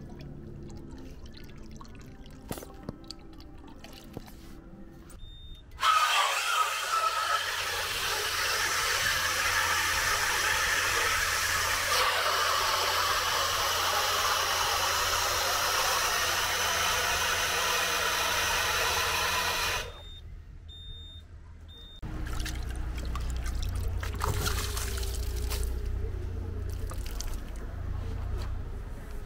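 Water jet spraying onto a car during a wash: a loud steady hiss that starts suddenly and cuts off suddenly about fourteen seconds later. After a short pause a lower rumbling noise follows.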